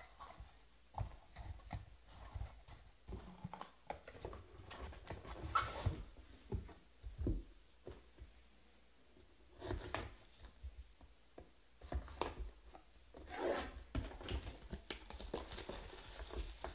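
Hands handling trading-card packs and boxes on a table: scattered light knocks and taps, with stretches of plastic pack wrapper rustling about six seconds in, around ten seconds, and from about thirteen to sixteen seconds.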